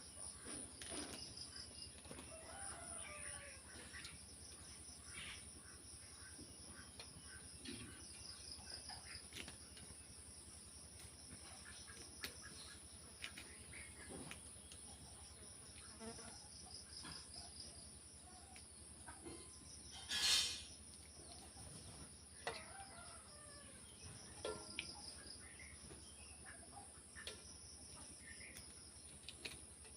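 Faint steady trilling of insects, with a rooster crowing faintly now and then. A short rustling burst about twenty seconds in is the loudest sound.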